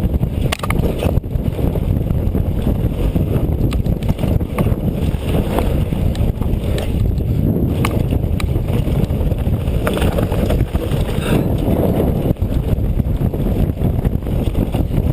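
Wind rumbling on the microphone and the tyres and frame of a Specialized Turbo Kenevo electric mountain bike rattling over rough trail on a downhill run, with sharp knocks now and then.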